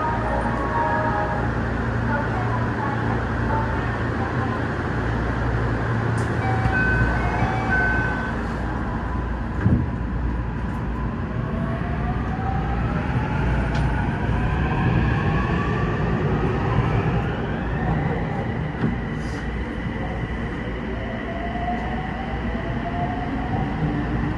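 Interior of a Toei 6300-series subway train pulling out of a station over a steady low rumble. A few short electronic tones sound in the first several seconds and a single thump comes about ten seconds in. The traction motors then whine in several tones that climb in pitch as the train accelerates.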